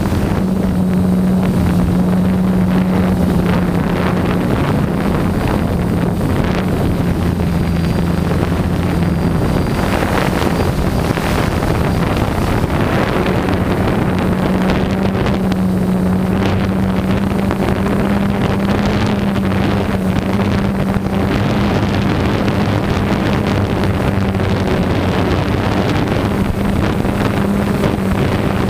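DJI Phantom quadcopter's motors and propellers humming steadily, picked up by the GoPro mounted on the drone, with wind buffeting the microphone. The hum dips and shifts briefly about ten seconds in, then holds steady as the drone hovers just above the ground.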